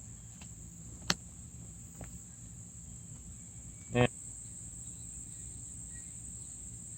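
Steady high-pitched trill of crickets in the background, with a sharp click about a second in and a short knock about four seconds in.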